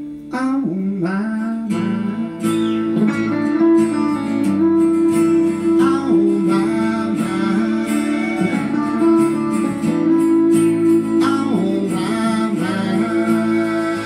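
Live country band playing an instrumental break of the song: guitar strumming over a held chord, with a picked lead line bending between notes.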